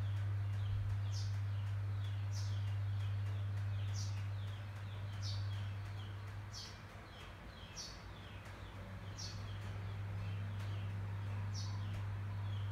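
Bird chirping repeatedly outdoors, short falling notes every second or two with fainter, quicker chirps beneath, over a steady low hum.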